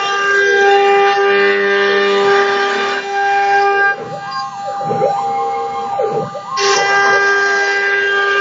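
Homemade CNC router cutting plywood: a steady high whine with the stepper motors' pitch rising and falling as the axes speed up and slow down. About halfway through, the steady whine drops away for a couple of seconds while the motor tones swoop, then returns abruptly.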